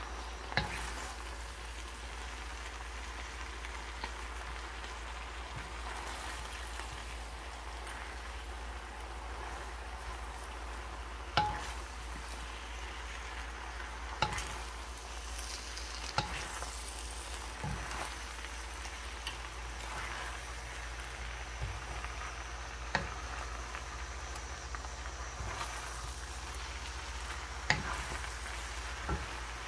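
Chicken and water spinach sizzling steadily in a skillet as they are stir-fried with wooden spatulas, with occasional sharp knocks of the spatulas against the pan.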